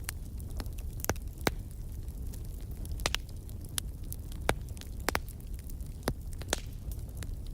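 Wood fire in a fireplace crackling: sharp, irregular pops, roughly one or two a second, over a steady low rumble.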